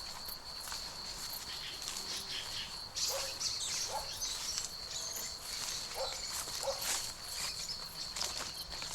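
A steady, high-pitched insect trill runs throughout, with footsteps crunching through dry grass and a few short bird chirps.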